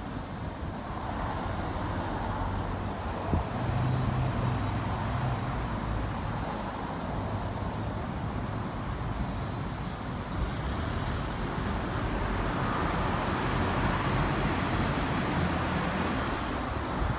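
Road traffic on the road running beneath: a steady rumble of passing vehicles that swells about four seconds in and again near the end.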